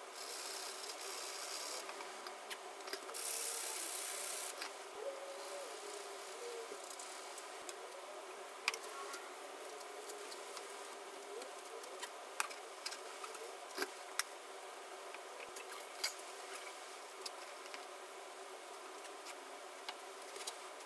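Cloth rag wiping Danish oil onto a white oak picture frame: quiet rubbing of cloth on wood, with a brief louder stretch of hiss about three seconds in and scattered light clicks and taps.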